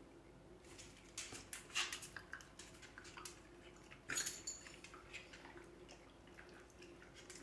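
Faint scattered clicks and crunches from a miniature schnauzer taking a dried meat treat from a hand and chewing it. The loudest snap comes about four seconds in, as the treat is taken.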